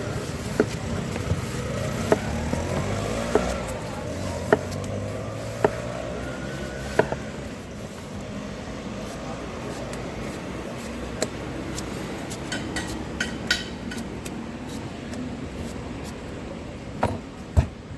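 Busy street background with traffic running steadily, broken by sharp knocks about once every second or so at first, a few quick ones in the middle, and the loudest two near the end.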